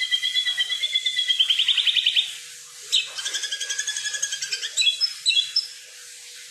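Songbird known in Indonesia as the kukluk, singing rapid runs of whistled notes. A first phrase ends in a fast trill about two seconds in, and after a short pause a second run of quick notes is followed by a few sharp, high calls. The bird falls quiet for the last second or so.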